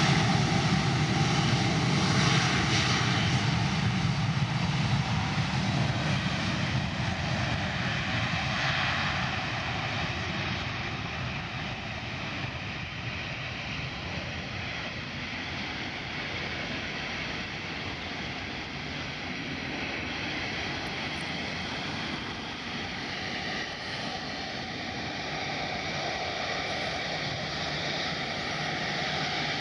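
Airbus A330neo's Rolls-Royce Trent 7000 turbofans running as the airliner rolls along the runway past and then away. The deep rumble is loudest at first and eases off over the first ten seconds or so, leaving a steady, more distant engine noise.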